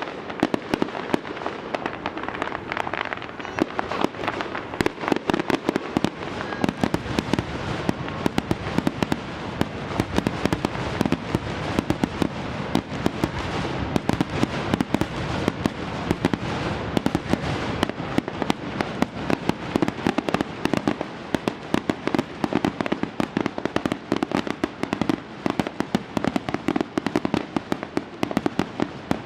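Fireworks going off in a rapid, continuous stream of sharp pops and crackles, many per second, with louder bangs scattered irregularly throughout.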